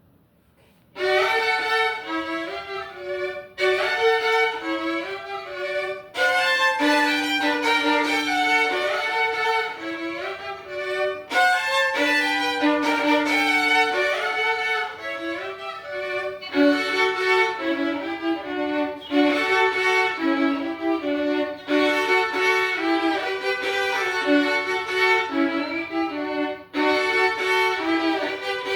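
Solo violin playing a prelude full of double stops, two notes sounding at once, in phrases separated by brief breaks; it starts about a second in.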